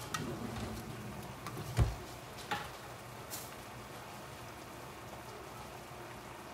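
Chicken pieces sizzling in honey garlic sauce in a skillet turned up to high heat, the liquid cooking down toward a sticky glaze. A few knocks in the first three seconds, the loudest a dull thump about two seconds in.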